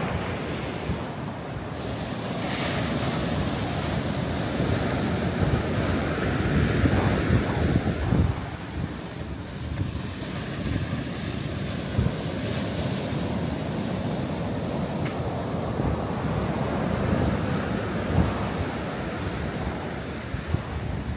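Ocean surf breaking and washing up a sandy beach, a steady rush that swells and eases with the waves, with wind buffeting the microphone as a low rumble.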